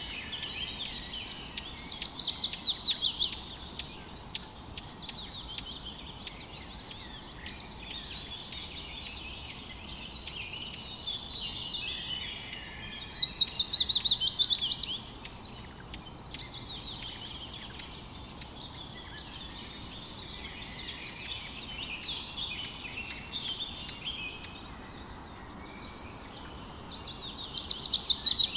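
Several songbirds singing together. One bird's loud song, a fast run of notes sliding downward, comes three times about thirteen seconds apart over steady chirping from the others.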